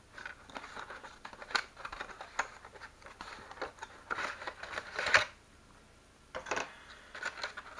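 Cardboard retail box and its moulded plastic insert tray being handled and slid apart: a run of clicks, rustles and scrapes, the loudest scrape about five seconds in as the tray comes out of the box.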